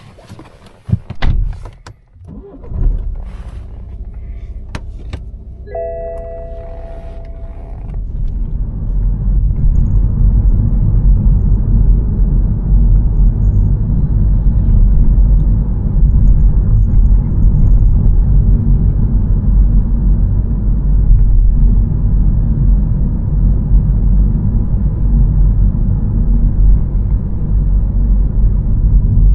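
Inside a car: a few clunks and clicks, then the engine starts about three seconds in and idles, with a short multi-tone warning chime around six seconds. From about eight seconds the car is driving, and the cabin is filled with steady low engine and tyre rumble.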